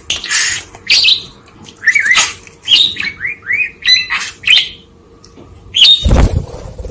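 Budgerigar chattering in a string of short, scratchy chirps and warbles that fade out about halfway through. A short, loud, low rushing noise follows near the end.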